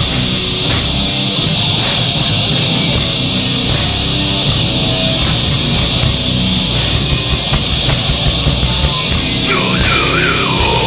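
A live heavy rock band playing: distorted guitars and drums, loud and dense, with the recording clipping. A wavering high note comes in near the end.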